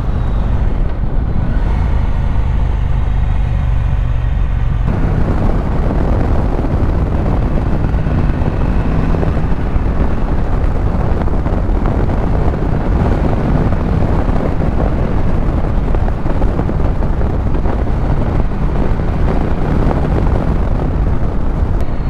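Husqvarna Norden 901's parallel-twin engine running as the motorcycle rides along, a steady low rumble heard from on the bike, mixed with wind rush that grows fuller about five seconds in.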